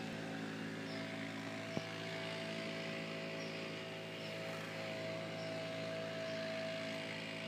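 Pressure washer running steadily, a constant machine drone with a hiss of spraying water, and a single sharp click just under two seconds in.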